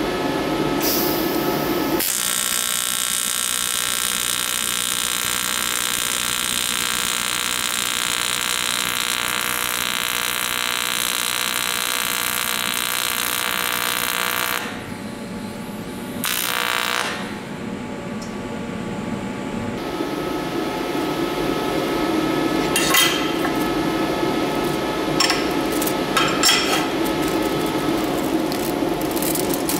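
AC TIG welding arc on aluminium foil, a steady buzz lasting about twelve seconds that cuts off, then a short second burst of arc. After that a steady low hum, with a few crinkles of the foil being handled near the end.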